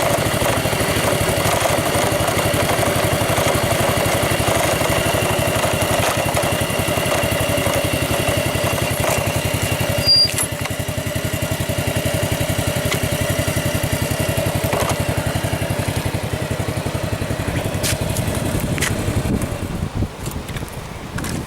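Motorcycle engine running steadily at an even pace, then easing off and getting quieter near the end.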